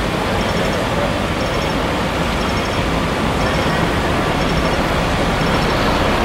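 Steady, loud rumble of fire engines' engines running in the street, with a faint high ticking that repeats about once a second.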